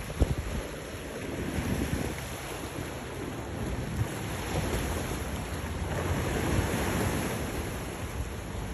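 Wind buffeting the microphone in gusts over the wash of sea waves against the jetty's rocks, swelling a little about two-thirds of the way through.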